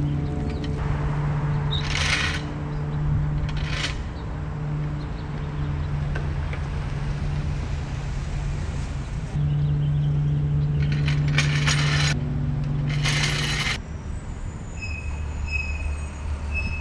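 Gas-powered leaf blower droning steadily, dropping away about fourteen seconds in to a lower hum, with several short noisy bursts over it.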